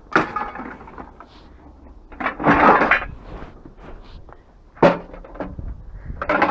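Scrap metal being handled and sorted: a sharp knock with a short ring just after the start, a longer rattling clatter about two and a half seconds in (the loudest), another sharp knock near five seconds, and a brief clatter at the end.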